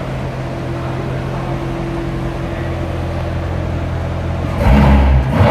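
Chevrolet Corvette Z06's supercharged V8 idling with a steady low burble, then revved briefly twice near the end.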